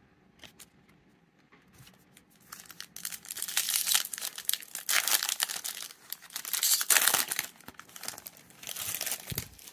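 Foil wrapper of a Topps baseball card pack being torn open and crinkled by hand, in several bursts of crackling from about two and a half seconds in. A low thump comes near the end.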